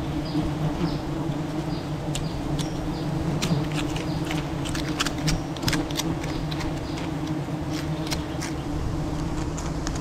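Steady buzzing hum of a swarm of wild honeybees disturbed at their nest while the combs are cut out, with scattered sharp clicks and cracks over it, most of them in the middle of the stretch.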